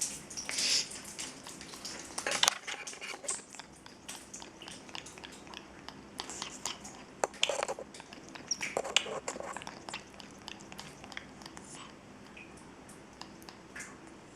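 A parrot just out of its shower making scattered soft clicks and rustles, a few louder ones in the first half.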